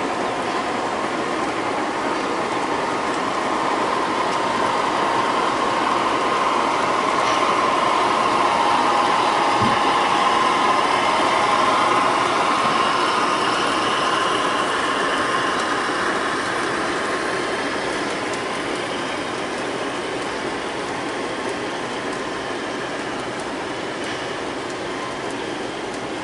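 Large-scale model train cars rolling along metal track on an elevated steel structure: a steady rolling rumble with a hum of wheels on rail. It grows louder toward the middle, then slowly fades.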